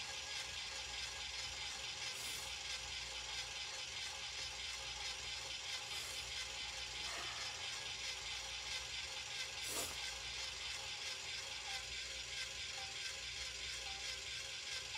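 Small electric kitchen appliance running steadily on a 20-second setting, with a few faint clicks, cutting off at the very end.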